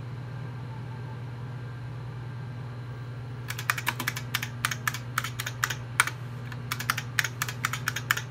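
Typing on a computer keyboard: a quick run of about twenty sharp key clicks in two bursts, starting about three and a half seconds in, with a short pause between the bursts. A steady low hum runs underneath from the running computer.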